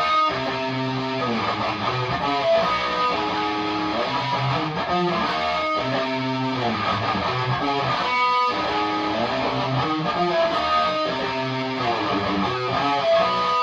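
Stock Chibson Les Paul Custom electric guitar played through a Marshall DSL40 combo amp with high gain, playing a song riff of chords and single notes that repeats about every four seconds.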